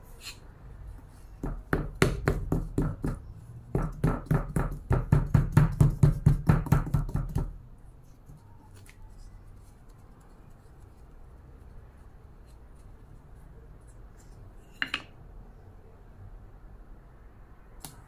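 Hands patting and slapping a lump of soft clay flat on a round board, about four quick slaps a second in two runs lasting several seconds, then quiet room tone with a couple of light clicks.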